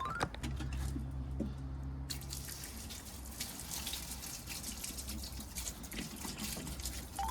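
Fire crackling and hissing with many small pops. A low hum runs for the first couple of seconds, and a short rising tone sounds at the start and again at the end.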